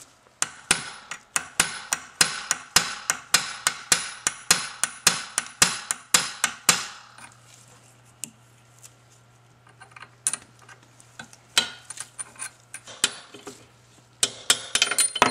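Hammer blows on a punch driving the shifter pin out of an NV3500 transmission case: sharp metal-on-metal strikes, about three a second, for the first seven seconds. A few scattered light taps and a faint low hum follow, and the rapid hammering starts again near the end.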